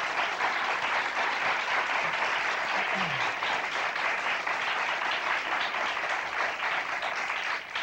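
Studio audience applauding steadily, a dense patter of many hands clapping, beginning to die away at the very end.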